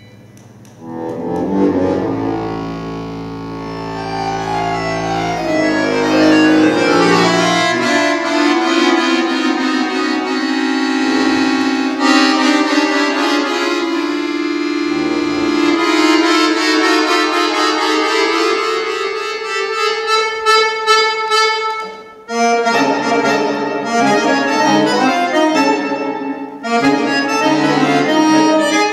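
Concert accordion playing a contemporary solo: held many-note chords swell in about a second in, low notes give way to dense, higher held chords, and after a brief break near the end the playing turns to fast repeated detached chords.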